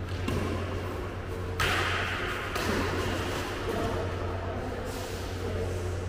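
Badminton play on an indoor court: occasional racket strikes on the shuttlecock and players' footsteps, with a sharper, louder sound about a second and a half in, over a steady low hum.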